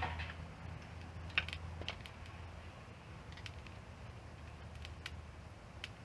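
Wood campfire crackling: irregular sharp pops and snaps, the loudest about a second and a half in, over a low steady rumble of flame.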